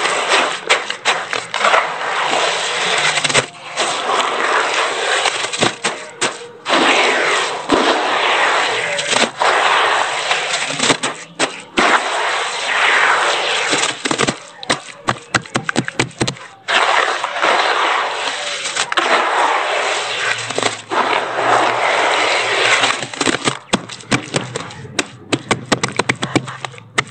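Hands squeezing and kneading wet cement-sand paste in a plastic tub: a loud, gritty squelching and crunching in long strokes with brief pauses. Near the end, a quick run of wet slaps and pats as the palms press and tap the smoothed paste.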